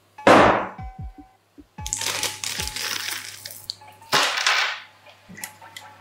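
Hands handling a PC tower case with a glass side panel: a sharp scrape and knock, a longer stretch of rustling and clattering, then another sharp scrape a little after the middle.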